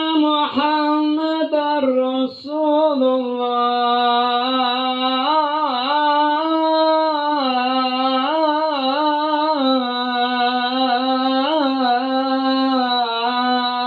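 Adhan, the Islamic call to prayer, chanted by a man into a microphone. He draws out long held notes at a steady pitch, with wavering turns between them.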